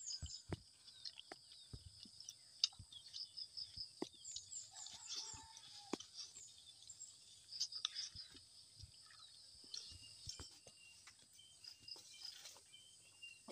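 Close-up eating sounds: soft chewing and repeated small mouth clicks, with birds chirping behind. A short slurp through a straw comes near the end.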